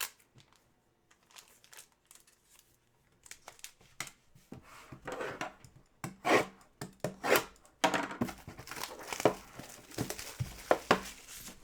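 Crinkling and tearing of plastic wrapping as a trading-card box is unwrapped, in irregular rustling strokes that start after a quiet few seconds and grow busier near the end.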